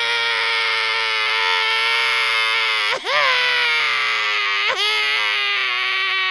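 Exaggerated comic crying: a long, steady, high wail held on one note, broken twice by a short sobbing catch, about three seconds in and again near five seconds.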